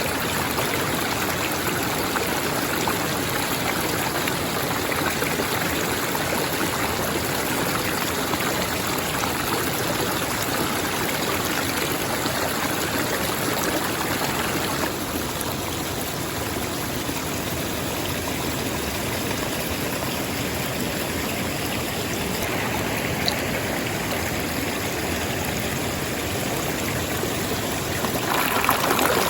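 Stream water running and splashing steadily over rocks. The rush eases a little about halfway through and swells again near the end.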